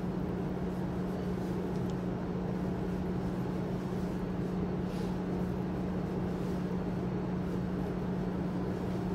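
Steady low hum of running machinery, with one constant droning tone and no change in level.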